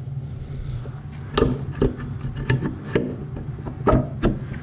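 Aluminium crankcase half of a Honda XR250R engine being slid down over the dowel pins onto the other half, giving about half a dozen light metal knocks and clunks over a steady low hum.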